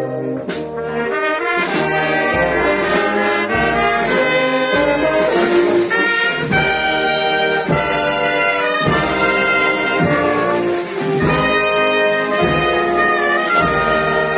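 Brass band playing a slow procession march: held brass chords with tuba underneath, and a struck beat about once a second.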